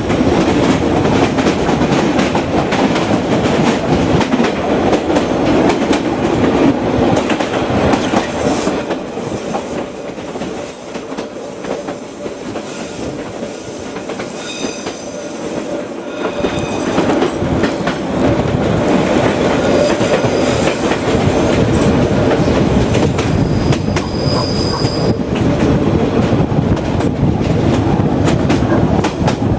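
Reunification Express train running along the track, its wheels clattering over the rails. The sound eases off for several seconds in the middle, and brief high-pitched squeals come about halfway through and again near the end.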